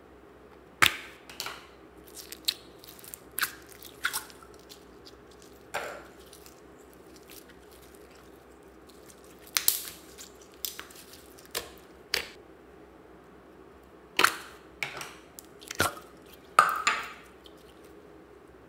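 Glittery slime squeezed, folded and stretched by hand, giving a dozen or so irregular sharp, sticky clicks and pops, loudest around the middle and near the end.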